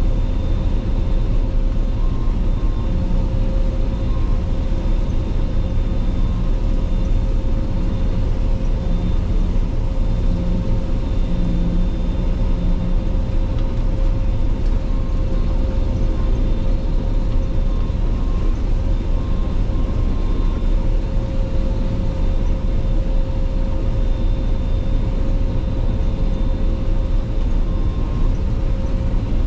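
Claas Lexion 480 combine harvester running steadily while harvesting: a constant low engine and machinery rumble with a few steady whining tones over it.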